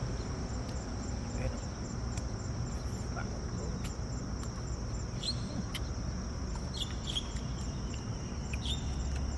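Steady high-pitched trilling of insects, with a few light clicks of spoons and forks against plastic plates.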